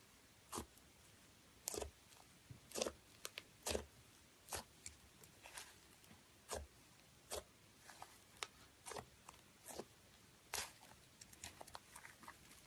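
Slime being squeezed and poked, giving irregular sharp clicks and pops, one to three a second.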